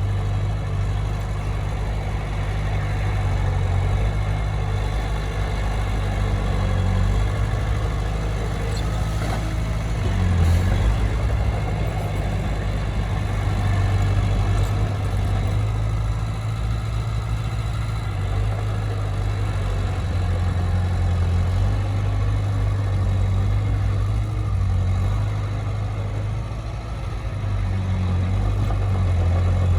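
Heavy diesel engine of earthmoving equipment running steadily, with a deep low hum whose pitch shifts slightly about ten seconds in and again near the end.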